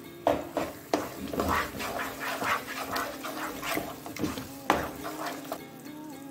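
Wooden spatula stirring thick, ghee-laden moong dal halwa in a non-stick pan: repeated wet scrapes and squelches, with a few sharper knocks of the spatula against the pan.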